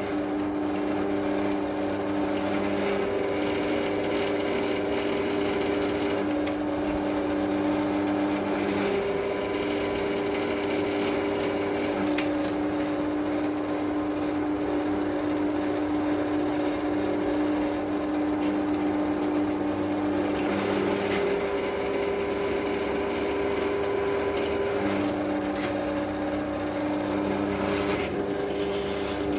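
Drill press running steadily, a small drill bit cutting into railway track steel, with a constant motor hum that shifts slightly in pitch a few times.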